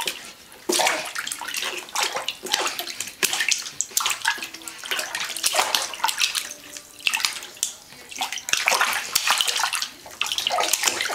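A baby splashing and slapping bathwater with her hands in a plastic infant bathtub: an irregular run of splashes, with a few short lulls.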